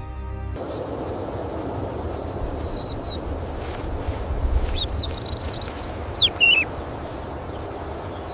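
A small songbird chirping and twittering in three short spells of high notes, over a steady rushing background with a low rumble.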